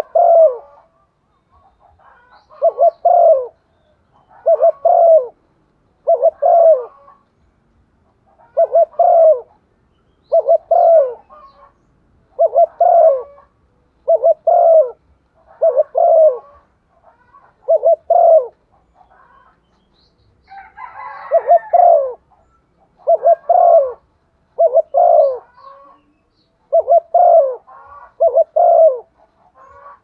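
Hen spotted dove cooing close by in short repeated phrases, one every one and a half to two seconds. This is the 'thúc gù' urging coo that bird keepers use to rouse males, and one rougher, broader call comes a little past two-thirds of the way through.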